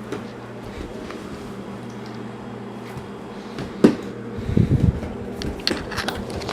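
Steady mechanical hum of a household appliance, with a sharp knock about four seconds in. A short stretch of low rumbling and a few small clicks and taps follow.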